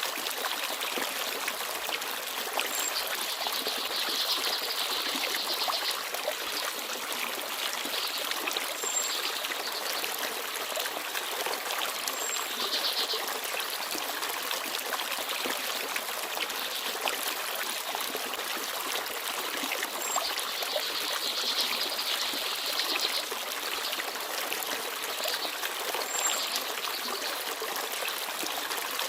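Small forest stream babbling steadily, with small birds chirping now and then in short high trills and single notes.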